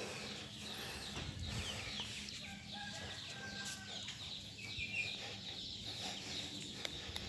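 Chickens clucking faintly, with a couple of brief high calls.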